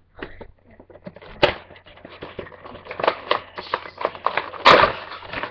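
Handling noise of a boxed Funko Pop vinyl figure held against the microphone: its cardboard-and-plastic packaging rubbing and clicking in irregular scrapes, with two sharper knocks, one about a second and a half in and one near the end.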